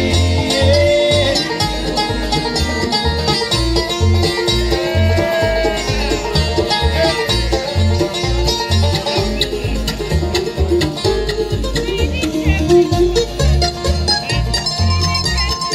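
Bluegrass band playing an instrumental break, with banjo over guitar and a bass keeping a steady beat.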